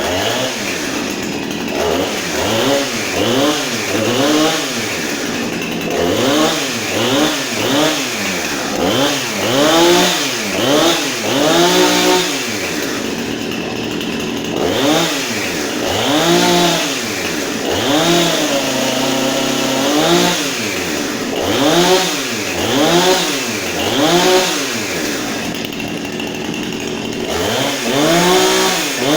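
Husqvarna 455 Rancher two-stroke chainsaw, running on its first start, revved repeatedly. The pitch rises and falls with each throttle blip, about once a second, with a brief steady stretch about two-thirds of the way through before the revving resumes.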